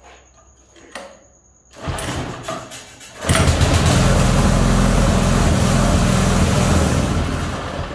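Small 6.5 hp longtail (rabeta) boat engine being cranked, catching about three seconds in and running steadily for several seconds, then cutting out at the very end as the newly wired kill switch shuts it off.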